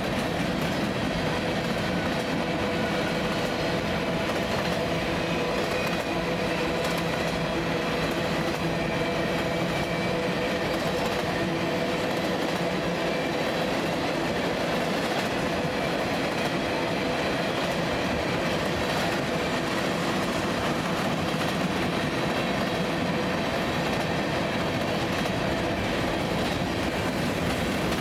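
Freight train cars rolling steadily past, steel wheels on rail giving a continuous rumble with thin steady squealing tones over it.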